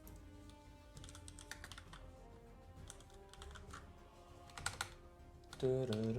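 Typing and clicking on a computer keyboard, a quick run of short key clicks over quiet background music. Near the end a voice comes in over it.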